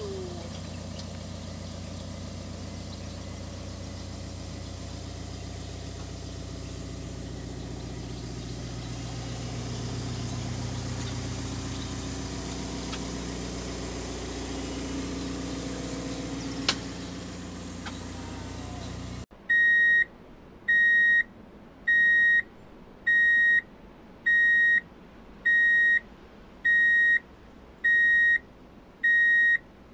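Diesel engines of CAT hydraulic excavators idling steadily as they warm up before work, with a single sharp click about two-thirds of the way through. The engine sound then cuts off abruptly and a loud electronic warning beeper sounds about once a second to the end.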